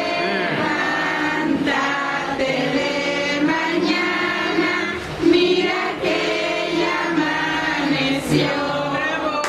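A group of children singing a birthday song together.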